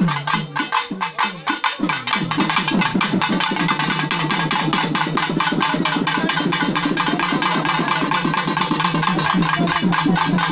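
Festival drums beating a fast, driving rhythm for dancers, about four strokes a second at first, then breaking into a denser, quicker beat about two seconds in.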